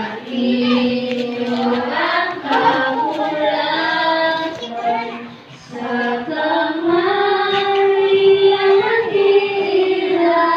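Group of children singing together, with several long held notes.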